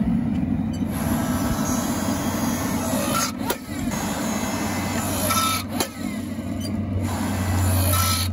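A log-splitter forging press running, its engine droning steadily as the ram squeezes a red-hot Damascus billet flat; the low hum grows louder about five seconds in.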